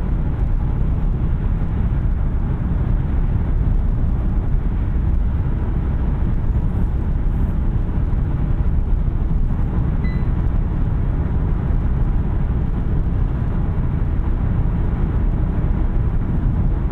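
Steady low rumble of road, tyre and wind noise inside the cabin of a 2021 Kia K5 Hybrid driving at speed.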